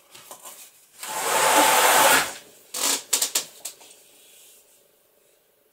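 A stretched canvas being handled in its cardboard shipping box: a loud scraping rush of canvas against cardboard lasting about a second, then several quick knocks and rustles as the canvas is lifted out.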